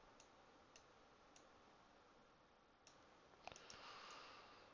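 Near silence with faint, scattered clicks of a computer mouse and keyboard, about half a dozen, and a soft hiss for about a second near the end.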